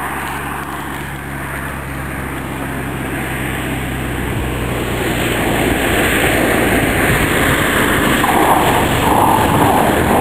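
Cessna 210 Centurion's six-cylinder piston engine and propeller droning, growing steadily louder as the plane comes in and lands on its main wheels with its nose gear failed. A rushing noise builds in the second half and is loudest near the end as it passes close.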